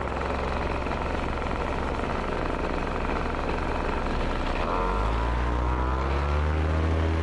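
Paramotor engine and propeller running at low speed, then throttled up about four and a half seconds in, its pitch rising over a couple of seconds to a strong, steady high-power note. The engine, with a newly replaced ignition plate, answers the throttle at once.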